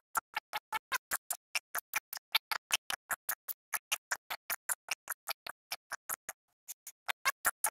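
Rapid, even train of short sharp clicks, about six a second, with a half-second break about six seconds in.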